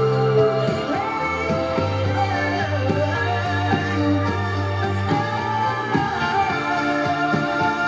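Pop ballad music: a sung melody over instruments, with held bass notes that change every second or two.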